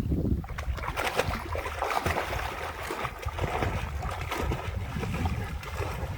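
Outdoor noise: wind rumbling on the microphone, with scattered rustles and clicks.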